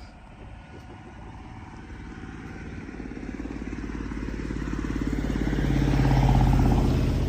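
A motor vehicle's engine approaching, growing steadily louder, passing closest about six seconds in and then starting to draw away.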